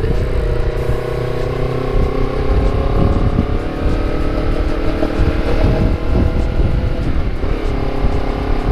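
Honda CBR250RR engine through a KEA Speed aftermarket exhaust, running steadily while riding, its note rising slightly midway and shifting again near the end, over a low rumble.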